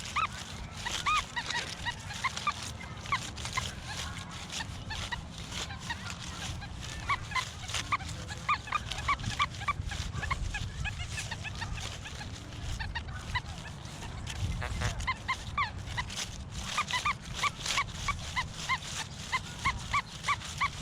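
A dog barking over and over in runs of short, high yips, a few a second, with brief pauses between the runs.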